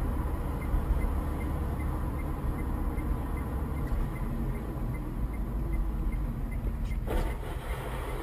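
Car driving, a steady low rumble of engine and road noise, with one sudden bang about seven seconds in.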